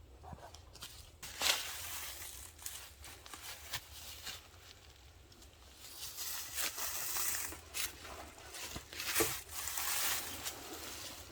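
A tarp being handled and pulled into place while it is pitched, giving irregular crinkling and rustling with a few light knocks.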